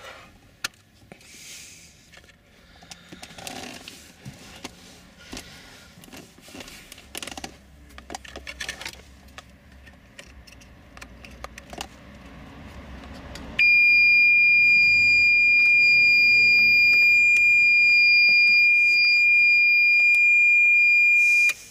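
Plastic clicks and rustling as wiring-loom plugs are pushed back into a BMW GM5 body control module's sockets. About thirteen seconds in, a loud, steady, high-pitched electronic beep starts, holds for about eight seconds, then cuts off suddenly.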